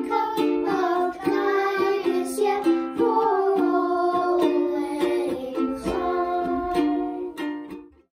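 Children singing a song together to a strummed string instrument accompaniment, fading out near the end.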